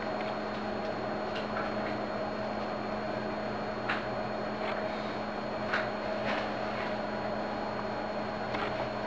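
Steady mechanical hum with a few faint clicks about four and six seconds in.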